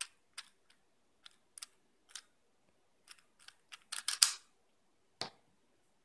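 Moyu Weilong GTS 3x3 speedcube being turned through an algorithm with finger tricks: short sharp plastic clicks, sparse at first, then a quick flurry of turns about four seconds in and one last click a second later.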